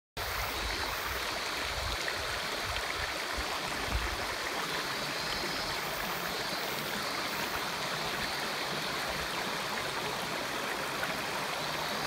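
Shallow river water flowing steadily over flat stones and gravel in a riffle.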